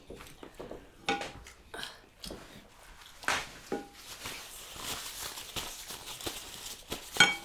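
Close-up eating sounds: chewing with scattered small clicks and smacks, a soft rustling crunch through the middle, and a sharper click near the end.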